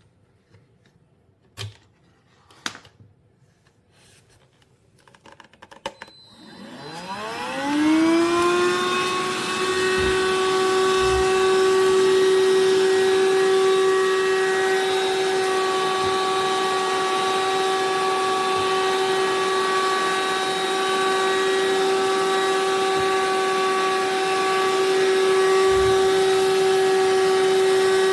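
A few light clicks, then the Powools cordless handheld vacuum's motor switches on about six seconds in. Its whine rises in pitch over about two seconds and then runs steadily and loudly.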